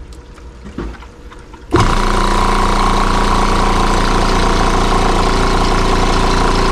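Mantus portable scuba air compressor switched on: about a second and a half in it starts abruptly and runs at a loud, steady pitch, filling a connected scuba cylinder. Before it starts, only the quiet hum of its cooling-water pump is heard.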